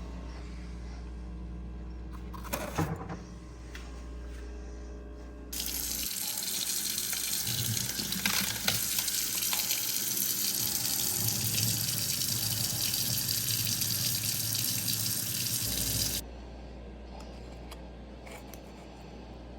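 Water tap running at full flow for about ten seconds, starting suddenly and cut off sharply, with a brief clatter a few seconds before it.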